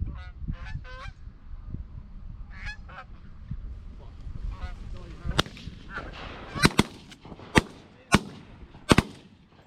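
Canada geese honking as a flock comes in. Then a volley of shotgun blasts starts about halfway through: around seven shots in under four seconds, some fired almost together.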